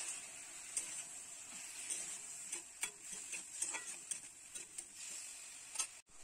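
Metal spatula stirring star fruit pieces in an aluminium kadai, with irregular clicks and scrapes of metal against the pan over a faint sizzle of the fruit cooking in hot oil.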